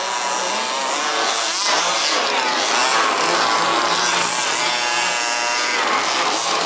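Several 1/5-scale RC buggies' small two-stroke petrol engines racing, overlapping in pitch and repeatedly revving up and easing off.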